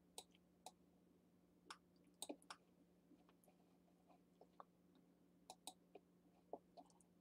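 Near silence: faint room tone with a steady low hum and about a dozen faint, irregular clicks from a computer mouse being clicked and scrolled.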